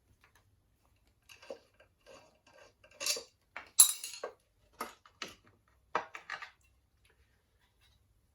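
Metal hand tools and engine parts clinking and clanking: a run of short, irregular knocks and clinks, the loudest about four seconds in.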